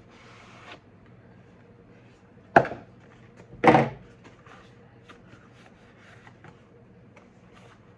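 Cardboard box being handled and opened: a short rustle, then two loud, sharp cardboard sounds about a second apart, the second a little longer, followed by faint small clicks and rustles.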